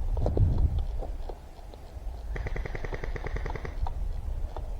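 Airsoft gun firing a rapid automatic burst of about a second and a half, around ten shots a second.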